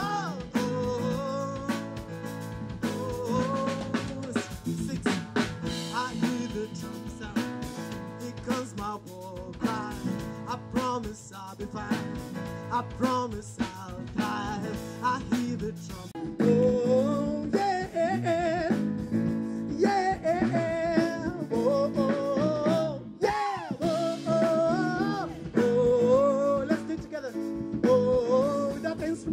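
Live band music: a male voice singing a gliding melody over keyboard chords, electric bass and a drum kit, growing fuller and louder about halfway through.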